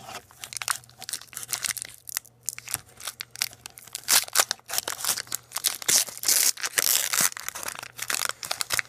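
Foil wrapper of a Pokémon Guardians Rising booster pack crinkling and tearing as it is ripped open by hand, in a rapid, irregular run of crackles and rips.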